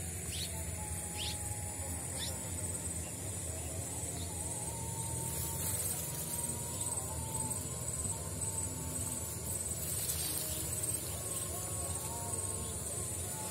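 Insects trilling in a steady high-pitched chorus, with a rapid pulsing chirp running through it, over a low steady rumble.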